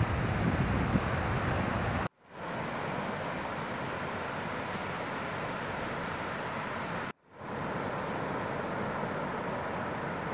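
Steady roar of breaking ocean surf, with wind buffeting the microphone in the first second. The sound cuts out twice, about two and seven seconds in, and fades back up each time.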